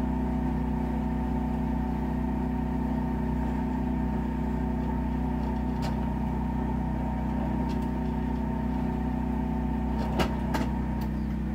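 Electric shotshell crimping tool running with a steady hum while it finishes the crimp on a 12-gauge shell. A couple of sharp clicks come about ten seconds in.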